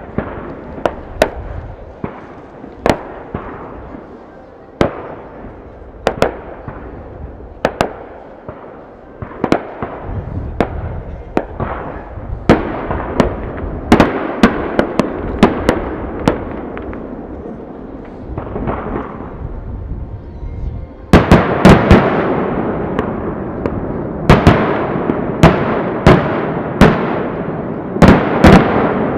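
Aerial fireworks shells bursting: a run of sharp bangs, each followed by a rolling echo, turning into dense rapid volleys about two-thirds of the way through and again near the end.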